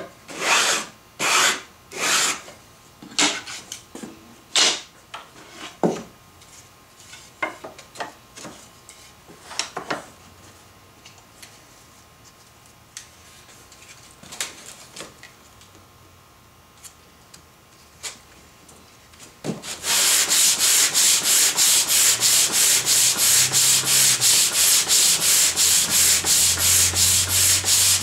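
Hand sanding a wooden board with a sanding block and sandpaper. A few separate rasping strokes open the stretch, then come scattered light knocks and a quieter spell. About two-thirds of the way through, fast, steady back-and-forth strokes start, about three or four a second and much louder.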